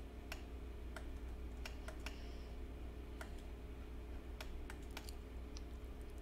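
Faint, irregular clicking of computer keyboard keys and mouse buttons and scroll wheel, about a dozen clicks, over a steady low electrical hum.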